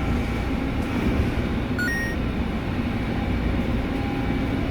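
Large bus diesel engine running with a steady low rumble as the bus camper pulls out. About two seconds in there is a brief two-note electronic beep.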